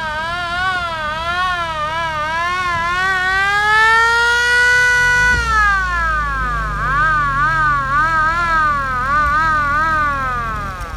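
Electronic siren cycling between its modes: a quick up-and-down yelp, then a long rise to a held high wail about four seconds in, a fall about a second later, and the quick yelp again until it cuts off near the end.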